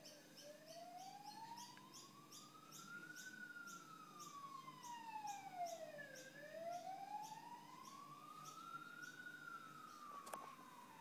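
Faint siren wailing, its pitch rising slowly for about three seconds and falling for about three, twice over. Under it runs a steady low hum, with a faint high ticking about twice a second.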